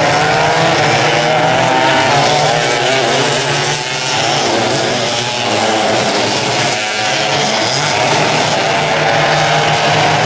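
Vintage twin rear-engine racing karts running flat out in a pack, several small two-stroke engines buzzing together at high revs. Their pitch wavers up and down as they pass, with brief dips in loudness twice.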